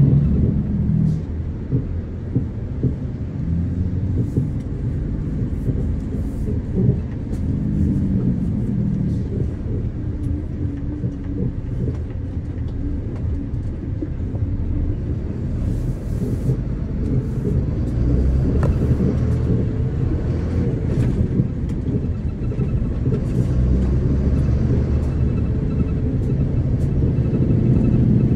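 Engine and road noise from a vehicle driving along a winding road: a steady low rumble, with the engine note shifting up and down.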